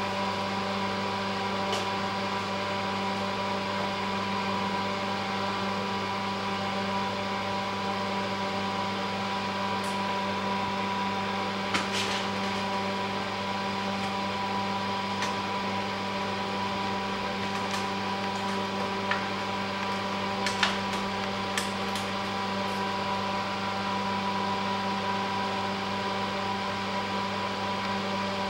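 Steady machine hum made of several fixed tones, like a motor, fan or pump running without pause. A few faint, short clicks stand out here and there.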